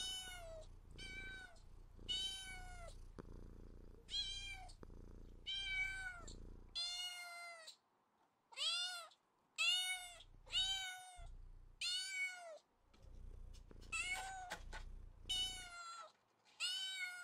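A cat meowing over and over, about one meow a second. Each meow is a short call that rises and then falls in pitch.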